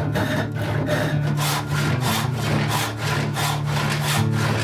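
A long hand saw ripping lengthwise down a walnut board held in a vise. The cut goes in quick, even strokes, about four rasping strokes a second.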